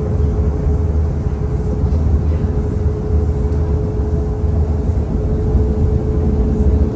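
Boat engine running steadily under way, heard aboard as a low rumble with a constant hum.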